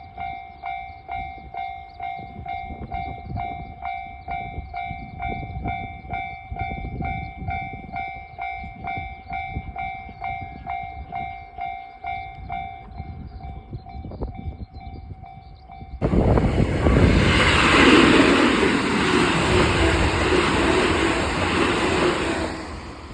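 Japanese level-crossing warning bell ringing in a steady beat of about two strokes a second; about 13 seconds in the ringing turns softer and thinner. From about 16 seconds in a train passes through the crossing, loud for some six seconds, then fades near the end.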